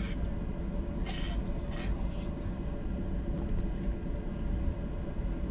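Steady low rumble inside the cabin of a Boeing 737-800, its CFM56 engines running low while it rolls slowly on the ground. Two short hissy noises come about a second and two seconds in.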